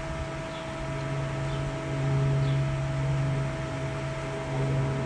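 Steady machine hum, like a motor or fan running, holding one low tone and swelling slightly about two seconds in.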